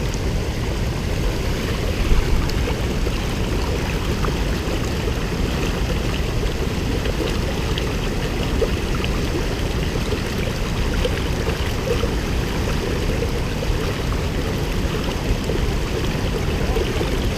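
River water flowing steadily, a continuous rushing.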